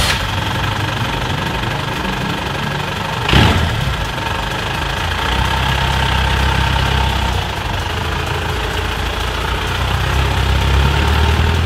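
Daihatsu Taft GT's Toyota 14B diesel engine running at idle, with one loud thump about three seconds in. The vehicle pulls away near the end.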